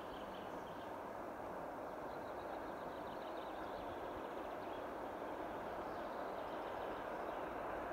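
Distant ED4M electric commuter train approaching: a faint steady rumble that slowly grows louder, with birds chirping faintly.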